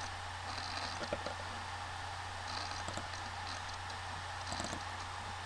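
Steady low electrical hum and hiss of room tone, with a few faint clicks.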